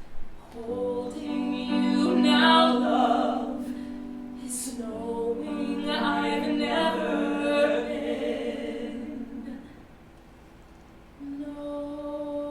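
Several voices singing musical-theatre harmony in two long phrases, with held notes under the melody. They fade out before a held chord sounds near the end.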